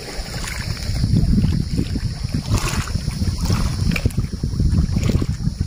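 Wind buffeting the microphone in irregular gusts, a heavy low rumble over a steady high hiss, beside a rippling lake.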